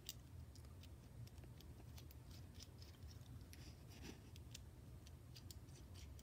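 Faint, scattered small clicks and scrapes of M8 set screws being threaded by hand into a metal motor-mount clamp, over a low steady hum.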